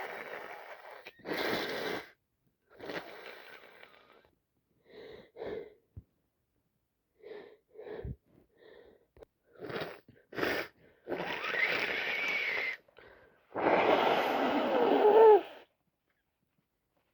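A person with a cold sniffling and taking short gasping breaths through a congested nose, then two longer, loud nasal blasts near the end, the last the loudest.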